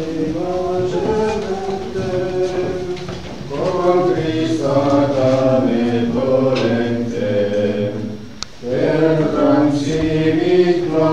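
Congregation of men and women singing a slow hymn together in a chant-like unison, in long phrases, with a short breath pause about eight seconds in.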